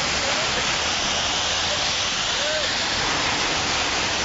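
Steady hiss of rain and car tyres on a wet city street.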